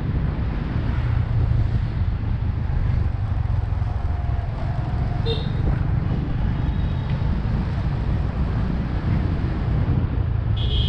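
Motorbike riding through city street traffic: a steady low rumble of engine and wind buffeting the microphone. There are brief high-pitched beeps about five seconds in and again near the end.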